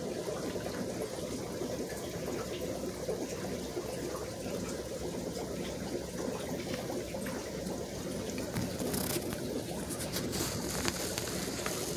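Steady bubbling and trickling of aquarium water from the tanks' filtration and aeration, with a few faint sharp ticks near the end.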